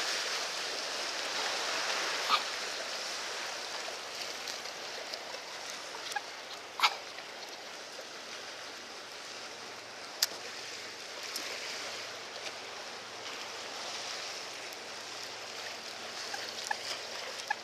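Steady wash of sea water against a breakwater, with three sharp clicks about 2, 7 and 10 seconds in.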